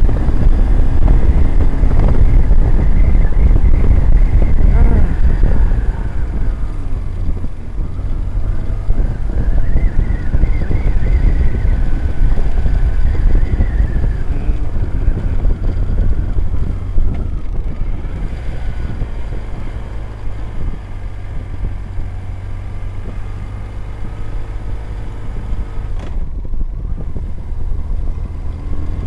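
BMW GS boxer-twin motorcycle running at road speed, its engine drone under heavy wind noise. The noise is loudest for the first several seconds, then eases a little.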